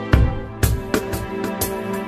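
Background music with a steady beat, about two beats a second, over sustained instrument tones.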